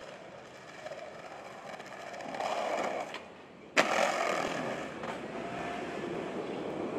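Skateboard wheels rolling on pavement and growing louder, then a short lull before a sharp clack of the board landing about four seconds in, followed by more rolling.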